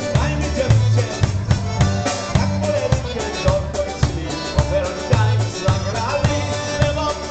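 Polka band playing live: a steady bass and drum beat under the melody, with a man singing.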